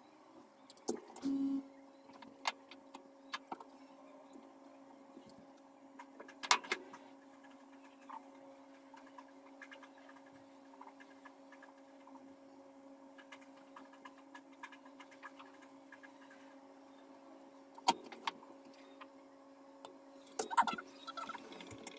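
A steady low hum that starts about a second in and holds on, with scattered small clicks and knocks over it, a few of them louder.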